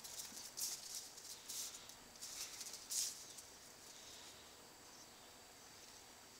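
Faint, short scuffling noises from a bull terrier puppy moving about on a tiled floor while playing with an adult bull terrier: about five scratchy bursts in the first three seconds, then quiet.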